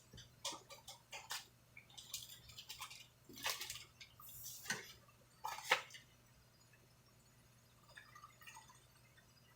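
Small packaging bags being handled and opened by hand: a run of light crinkles and clicks for about six seconds, the sharpest just before the sound stops, then a few faint rustles near the end.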